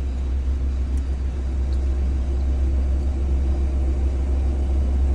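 Steady low rumble of a Saab 340's twin turboprops at takeoff power, heard in the cockpit during the takeoff roll and growing slowly louder.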